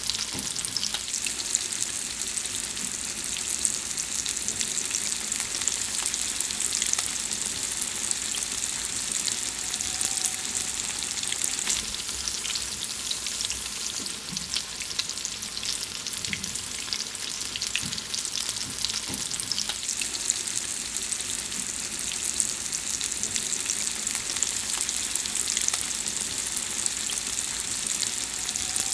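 Food frying in hot oil: a steady sizzle with dense, fine crackling pops throughout.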